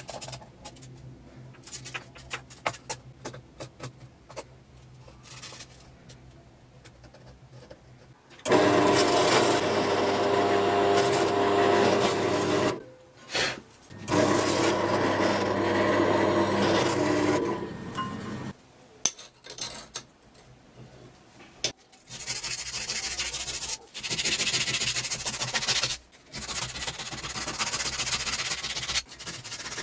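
Light clicks and taps of parts being handled, then a drill press running and drilling through steel square tubing for about ten seconds, stopping briefly in the middle. Near the end, the steel tube is rubbed smooth by hand in long strokes with short breaks between them.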